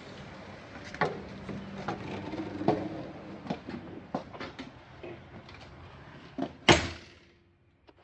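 Footsteps and knocks on the travel trailer's entry steps and floor, then the entry door shuts with one loud bang near the end, and the outdoor noise drops away.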